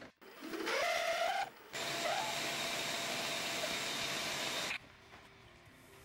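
Milling machine spindle starting up with a rising whine, then, after a brief break, running steadily with a loud rushing noise as the bit plunges deeper into the golf ball held in a 3D-printed jig. It cuts off about three-quarters of the way through, leaving low room sound.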